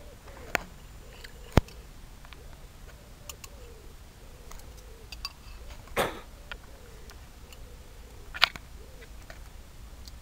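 A metal spoon clicking against a ceramic cereal bowl a few times while eating, as short sharp clicks over a steady low hum, with a broader knock about six seconds in.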